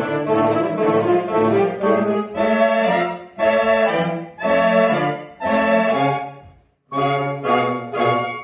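Saxophone ensemble playing chords together: a flowing passage, then a run of separate held chords with short breaks between them, a brief full pause about six and a half seconds in, and shorter chords after it.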